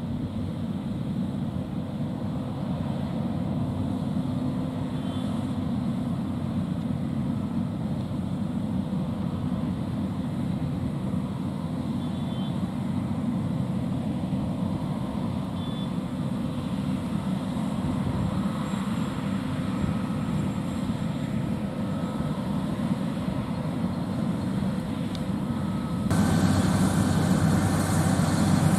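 John Deere combine harvester running steadily while cutting wheat and unloading into a tractor-drawn grain cart alongside, a dense low engine and machinery drone. About 26 seconds in the sound abruptly becomes louder and brighter as the combine is heard close up.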